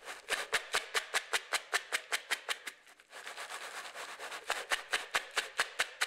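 Candy and cereal (Skittles, Fruit Loops and other sweets) being mixed together, rattling and clicking quickly and evenly, about five clicks a second, with a brief pause midway.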